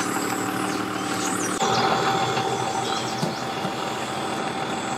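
Vehicle engines idling: a steady engine hum that switches abruptly to a different, slightly louder idling engine about a second and a half in.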